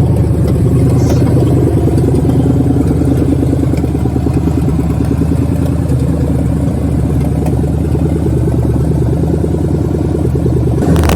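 Straight-piped TBI truck engine, its exhaust open right at the manifolds, running steadily and loudly. A brief clatter sounds near the end.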